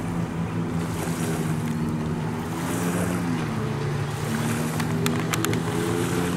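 A 1995 Sea-Doo GTX jet ski's Rotax 657X two-stroke twin engine runs fast over the rush of its spray. The drone's pitch dips briefly about three seconds in and climbs back, then grows a little louder near the end, with a few faint clicks about five seconds in.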